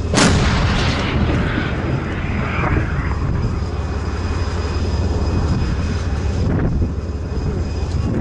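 A tank's main gun fires once, a sharp blast about a quarter second in that dies away over a couple of seconds, over a steady low engine drone.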